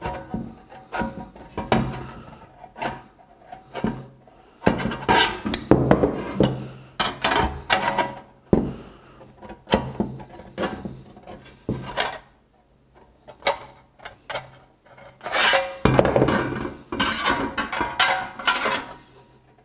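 Aviation tin snips cutting a metal gutter: repeated sharp snips and scraping of the blades through the sheet, with the gutter rattling as it is handled. The cutting stops for a few seconds about two-thirds of the way through, then starts again.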